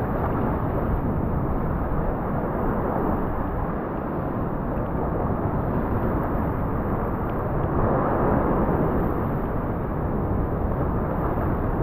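Ocean waves surging and washing over a rock ledge, a steady rushing hiss, with wind rumbling on the microphone. One surge swells a little louder about eight seconds in.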